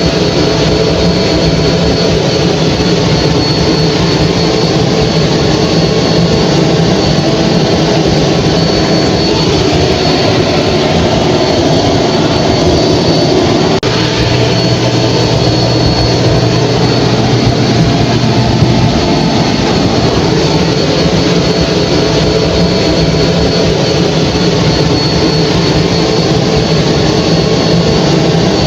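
Hair dryer running steadily: a loud, even whoosh with a thin high whine held throughout, and a brief dip in level about fourteen seconds in.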